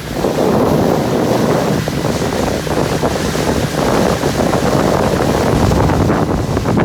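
Loud wind buffeting the microphone over water rushing past a motorboat under way, starting suddenly and then holding steady.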